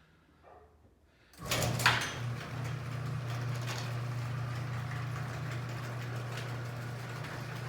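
Electric garage door opener starting up about a second and a half in with a clunk, then running steadily with a low motor hum as it drives a freshly reinforced, previously sagging garage door open.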